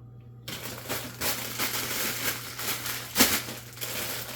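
Packaging crinkling and rustling as filter parts are unwrapped and handled, starting about half a second in, with one sharp snap a little after three seconds.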